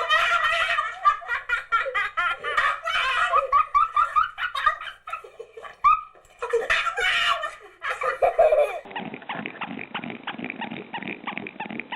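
High-pitched laughter in quick rising and falling bursts; about nine seconds in it cuts off abruptly and a raspy, rapidly pulsing animal noise takes over.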